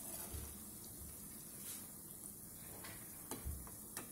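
Bottle-gourd koftas frying in oil on a very low flame, a faint steady sizzle, with a few light clicks of a steel slotted spoon against the kadhai.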